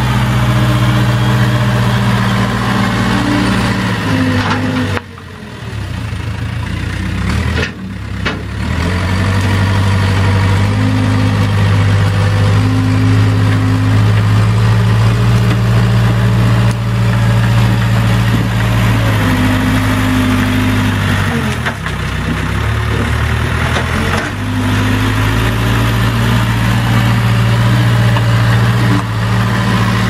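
Case 580K backhoe's Cummins diesel engine running as the loader bucket pushes brush. Its speed drops and recovers several times, most sharply about five seconds in.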